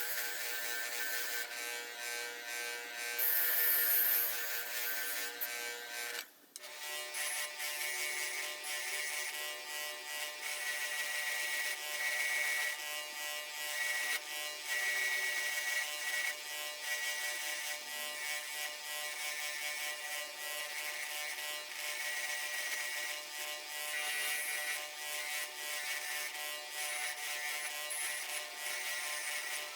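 A small electric power tool's motor running steadily with a buzzing whine, cut off briefly about six seconds in and then running on.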